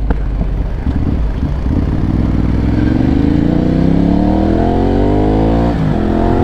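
Ducati motorcycle with a loud aftermarket exhaust accelerating hard, the engine note rising steadily through a gear, with a brief dip near the end as it shifts up and then climbs again. Wind rumbles on the helmet microphone.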